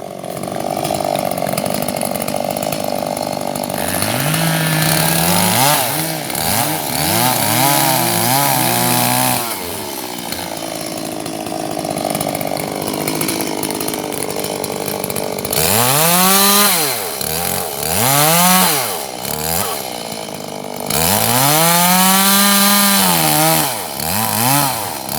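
Two-stroke chainsaw idling, then revved hard three times to cut dead ash wood. Each time the engine pitch climbs, holds and falls back, and it drops to idle between cuts.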